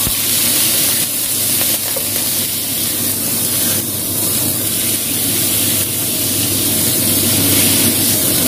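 A whole fish frying with ginger slices in hot oil in a wok: a steady sizzle and hiss as it is shifted and turned with a spatula.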